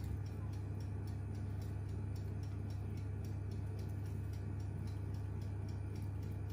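Steady low electrical hum with faint, even ticking about four times a second.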